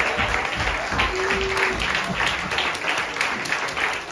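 Audience applauding, many hands clapping at once, with music playing underneath and a brief held note about a second in.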